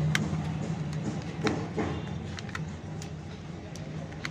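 Scattered light clicks and taps of a mobile phone's plastic housing being handled and opened, over a steady low hum.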